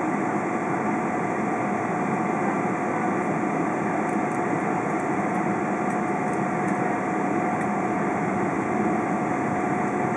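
Steady cabin noise inside a Boeing 777-200 taxiing: the jet engines running at low power with an even hum and a constant whine, mixed with the hiss of the cabin air conditioning.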